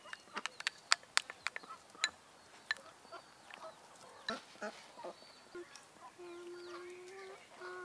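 A quick run of sharp clicks and taps, then a farm bird's long, even-pitched call near the end, breaking off briefly and starting again.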